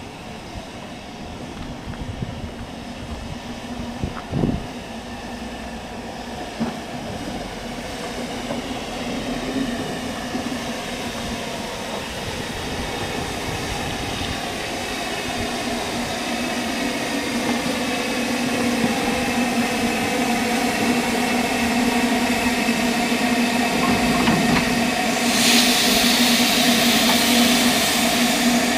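Narrow-gauge steam locomotive drawing slowly closer, its steady hum growing louder, with a few clanks in the first seconds. Near the end a loud hiss of steam starts as steam blows out around the cylinder.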